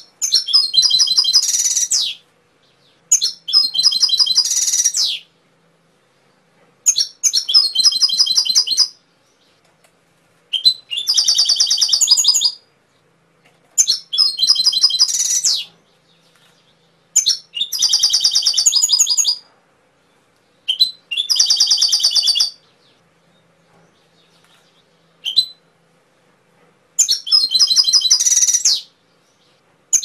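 Domestic canary singing: eight phrases of about two seconds each, made of rapid rolling trills high in pitch, with pauses of one to two seconds between them and one short single note about three-quarters of the way through.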